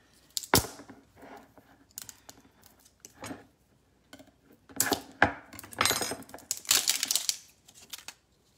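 A glass jar of minced garlic being opened and worked at with a kitchen utensil: a sharp knock just after the start, then scattered clicks and clusters of clinking and scraping of metal against glass and lid.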